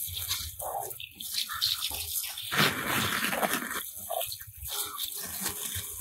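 Water spraying from a handheld hose nozzle and splashing onto muddy toy cars and the wet ground, in uneven spurts, heaviest about halfway through.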